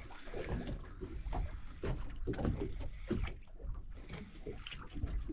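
Water sloshing against the hull of a boat at sea, with a steady low rumble and faint irregular splashes.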